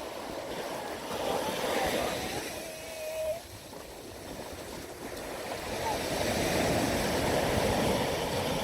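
Sea surf: waves breaking and washing up the sand, the wash swelling loudest in the last few seconds.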